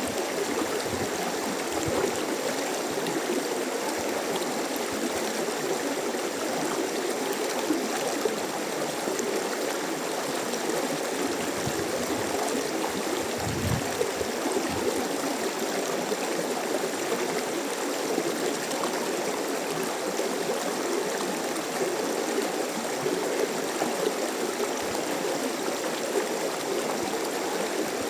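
Mountain stream rushing and babbling over rocks: a steady, unbroken water noise.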